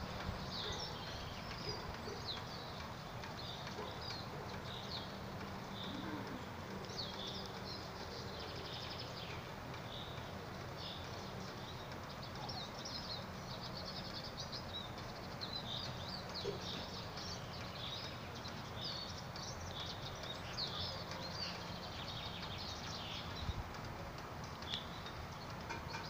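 A chorus of small songbirds: many short, high chirps and trills from several birds at once, going on without a break over a steady background hiss.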